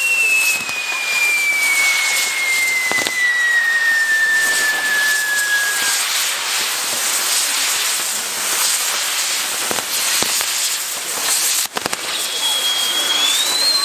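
Castillo of spinning firework wheels burning with a steady dense hiss and crackle of sparks. A whistle falls slowly in pitch over the first six seconds, another whistle starts near the end, and a few sharp cracks come through.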